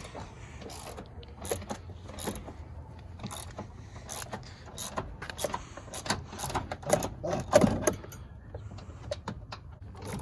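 Metal seatbelt hardware being handled and fitted at the base of a pickup truck's seat: irregular small clicks, clinks and knocks, loudest a little past the middle.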